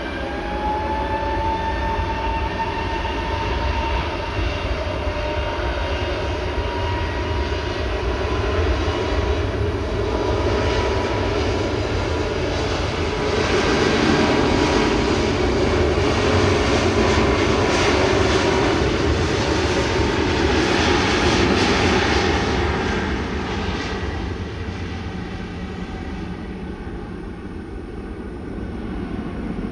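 Airbus A320 airliner's twin turbofan jet engines at takeoff power: a whine rises at the start as the engines spool up, the noise swells to its loudest in the middle, then it fades toward the end as the jet departs.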